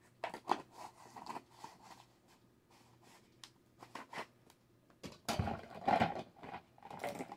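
Small scrapes and taps of a spoon against a jar of ground ginger, scattered and light, then louder knocks and clatter from about five seconds in as the jar is handled and set down on the table.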